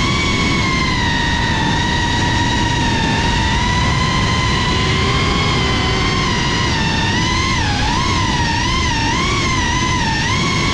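Whine of an FPV quadcopter's motors and propellers, its pitch drifting up and down with the throttle and wobbling quickly in the last few seconds, over wind rushing on the onboard camera's microphone.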